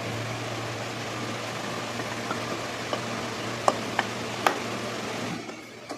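A steady hum and hiss, with several short sharp clicks and taps as the aluminium gearbox cover of a Honda Activa 6G scooter is fitted onto its case; the hum and hiss stop shortly before the end.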